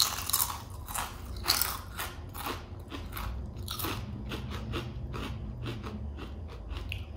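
Two people biting into very crispy potato chips and chewing them: a loud crunch of the first bite at the start, then a run of crunchy chews, about three a second.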